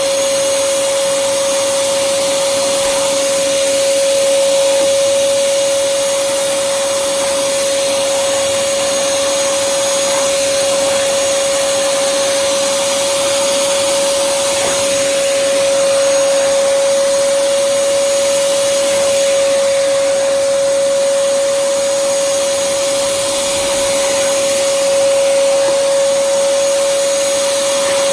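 Stanley 4-gallon, 4 HP stainless steel wet/dry shop vacuum running steadily: a constant whine over a rushing air hiss as it sucks up water through its brush-and-squeegee floor nozzle.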